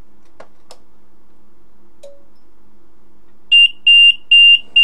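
Sencore LC102 capacitor-inductor analyzer's alarm beeping, a high electronic beep about twice a second that starts about three and a half seconds in. This is the alarm the analyzer gives when its relay contacts do not close.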